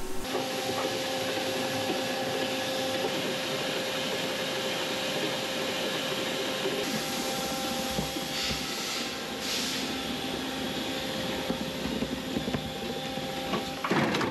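Mitsubishi horizontal machining center running its cycle: a steady machine hum with a few constant tones, and hissing bursts about two-thirds of the way through. Near the end comes a loud clunk as the automatic tool changer arm grips a tool.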